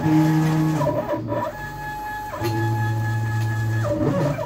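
Stepper motors of a DIY CNC router driving the gantry at rapid speed with the spindle off: a loud whine that holds one pitch for each move and jumps to a new pitch, with a short glide, four or five times.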